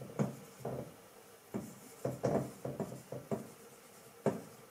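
Dry-erase marker squeaking and scratching across a whiteboard as words are written, in a series of short strokes.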